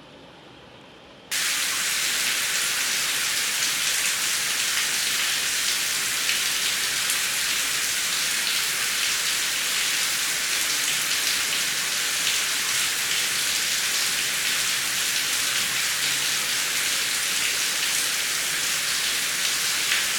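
Heavy rain: a dense, steady hiss of falling rain with the patter of drops. It cuts in abruptly about a second in, after a much quieter hiss.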